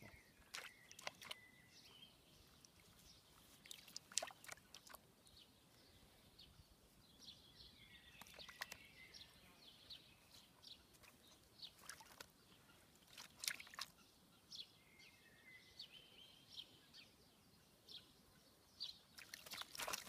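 A young peregrine falcon bathing in a shallow tub of water: faint, scattered splashes as it dips and spreads its wings in the water.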